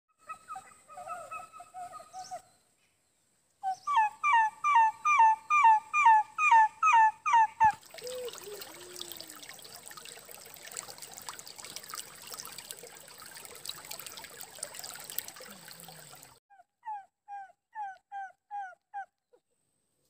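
An animal calling in a quick run of sharp, falling notes, about three a second, then a stream rippling over rocks, then a shorter run of the same calls. A steady high whine sits under the first half.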